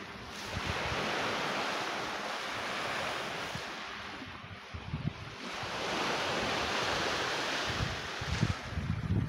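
Small sea waves washing onto a pebble beach, the surf hiss swelling and fading twice. Wind buffets the microphone in low rumbles near the end.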